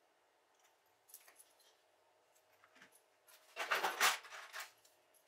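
Faint handling noises: a few light clicks, then about a second of rustling and clattering about three and a half seconds in.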